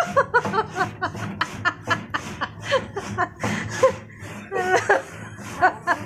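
A person laughing in quick, short chuckles, several a second.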